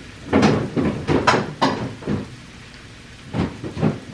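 Kitchen handling noises: a quick run of short, irregular scrapes and knocks, like utensils and a pan being handled, followed by a pause and two or three more near the end.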